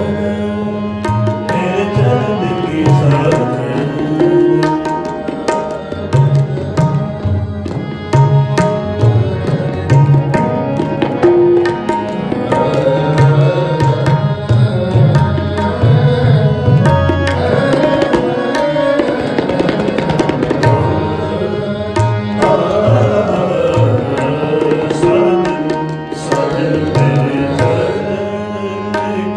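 Sikh shabad kirtan music: tabla playing a steady rhythm under sustained harmonium tones.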